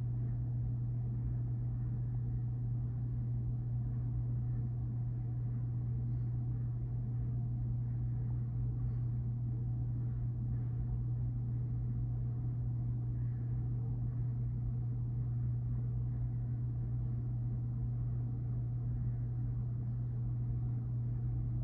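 Freight train passing, heard from inside a house through a closed window as a steady low rumble.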